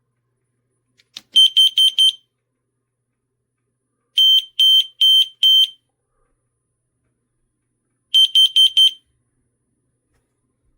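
HuiDeonne combination smoke and carbon monoxide detector sounding its alarm: three groups of about four short, high-pitched beeps each, the first and last groups quick and the middle group slower, with a faint click just before the first.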